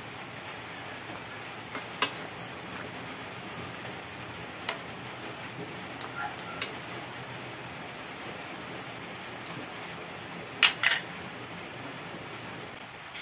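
A utensil clinking a few times against an aluminium wok of simmering soup, then a loud double clank near the end as the wok's aluminium lid is set on, over a steady hiss.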